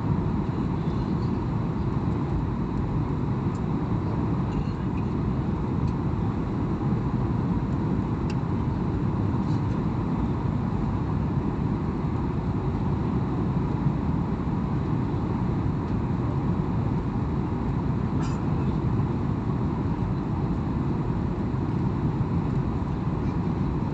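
Steady drone of an airliner's engines and rushing air heard inside the passenger cabin during the descent to land, with a few faint ticks.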